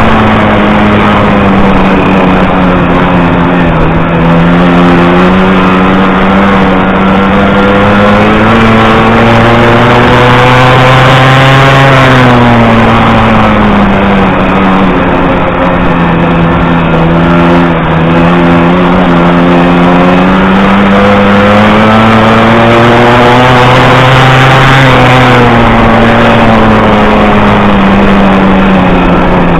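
50cc two-stroke Puch Maxi moped engine racing flat out, heard from on board, loud and continuous. Its note climbs for several seconds and then drops away, twice, peaking about twelve seconds in and again about twenty-five seconds in.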